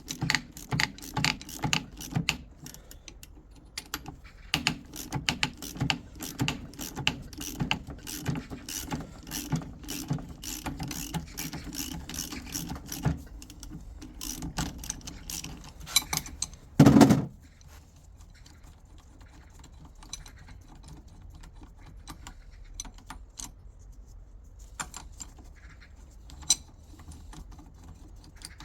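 Metal clicking and clattering of hand tools and parts during work on a Toyota robotised manual gearbox: rapid clicking, like a ratchet wrench, for much of the first half. A single heavy knock comes about 17 seconds in, followed by occasional light clicks.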